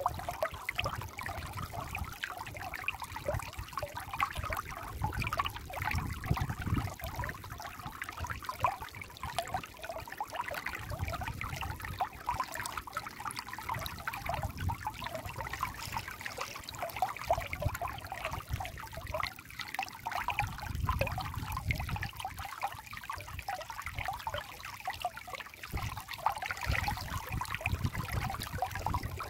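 Shallow stream running over rocks and stones, a steady close-up splashing and trickling, with a low rumble that comes and goes.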